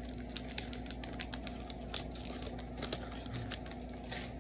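1990 Fleer basketball cards and their pack being handled: a run of quick, irregular clicks and rustles over a faint steady hum.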